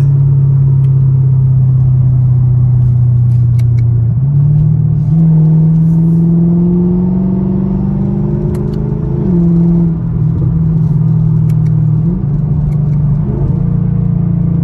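Straight-piped 6.2-litre V8 exhaust of a sixth-generation Camaro SS cruising, with a loud, steady note. About four seconds in the pitch rises and keeps climbing under light throttle, then drops suddenly at an upshift of the 8-speed automatic about nine seconds in, and picks up again near the end.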